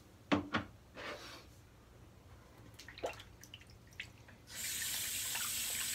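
Two quick knocks, then small clicks, and about four and a half seconds in a water tap is turned on and runs steadily into a sink to rinse slick shaving soap off the fingers.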